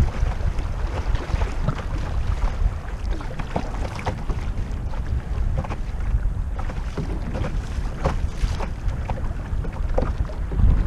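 Wind noise rumbling on the microphone over the lapping and small splashes of fast river water against a drifting canoe's hull.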